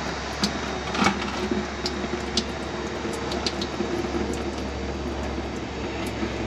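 Hot engine oil draining from a loosened oil filter into a bucket below: a steady rushing pour with scattered small clicks.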